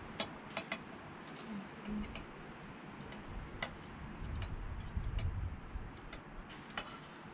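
Scattered light metallic clicks and taps of a steel straight edge and feeler gauge being handled against a 5.9 Cummins cast-iron cylinder head, while its deck is checked for flatness. A dull low rumble of handling sits around the middle.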